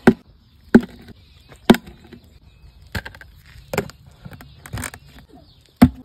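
Sharp plastic knocks and clacks, about seven spaced roughly a second apart, as the red base of a plastic chick waterer is handled and pressed onto its water-filled jar.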